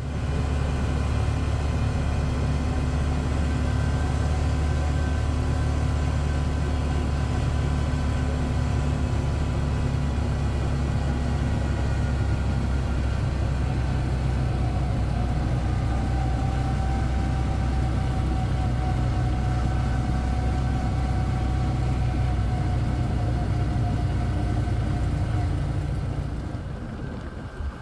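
CFMoto ATV engine running steadily at an even cruising speed, with a strong low drone. It eases off near the end.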